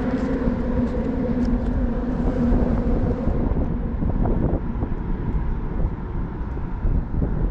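Steady low rumble with an engine hum, a held pitched note that fades out about three seconds in.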